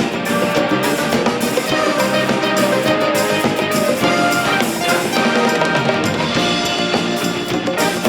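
Instrumental music played by a band, with a drum kit keeping a steady beat under many pitched instruments.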